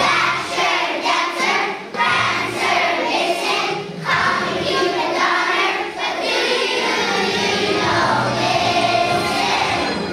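First-grade children's choir singing a holiday song together, with steady low notes under the voices.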